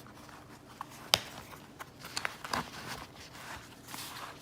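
Hand tools being handled in a fabric tool roll: a few metal clicks and knocks with some rustling, the sharpest click a little over a second in.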